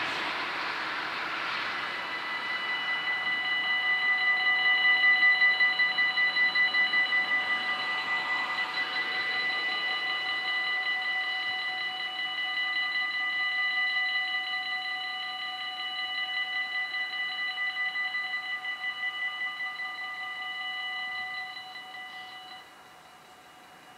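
Warning bells of a Dutch automatic half-barrier level crossing ringing fast and evenly, signalling an approaching train while the barriers lower; they stop abruptly about 22 seconds in, once the barriers are down. A passing car is heard at the start.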